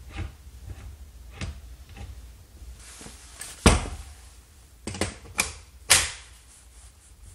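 Hard plastic clicks and knocks as an M18 REDLITHIUM battery pack is handled and slid onto a Milwaukee M18 FUEL grinder: faint taps at first, then a loud knock about halfway through and a cluster of clicks ending in a loud snap as the pack goes home on its rails.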